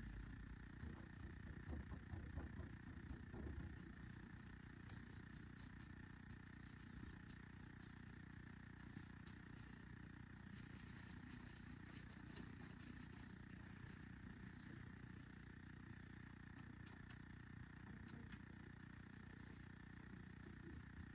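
Near silence: steady low room hum, with a few faint ticks partway through.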